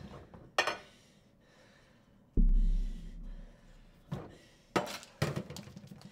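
Film sound-design impacts: a deep boom with a low hum, hitting about two and a half seconds in and fading slowly, with several short sharp cracks around it.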